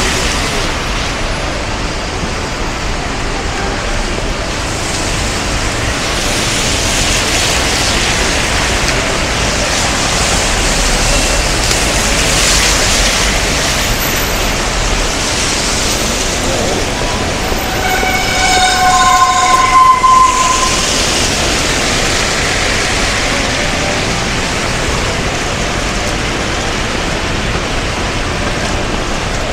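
Steady rush-hour traffic and rain on wet road. About two-thirds of the way through, a vehicle sounds a loud two-note warning tone for about three seconds, a lower note and then a higher one.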